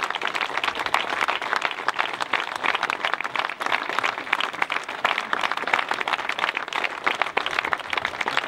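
An audience applauding, many hands clapping in a dense, continuous mass.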